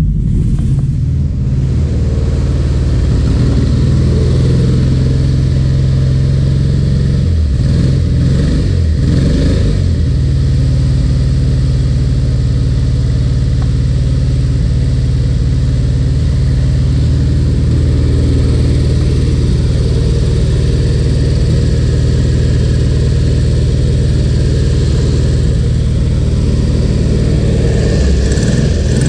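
Volkswagen Fusca's air-cooled flat-four engine on twin carburetors, running on alcohol, idling steadily. It is briefly revved up and let back down about eight seconds in, and again near the end.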